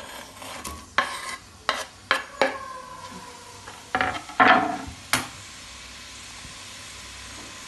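Sliced onions going into hot coconut oil in a metal pot and being stirred: a spoon knocks and scrapes against the pot several times, with the pot ringing briefly after the loudest knocks. From about five seconds in, the onions sizzle steadily as they fry.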